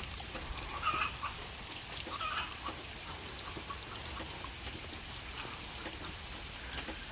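Steady rain falling, with a few short hen calls in the first couple of seconds, from chickens squabbling in their coop.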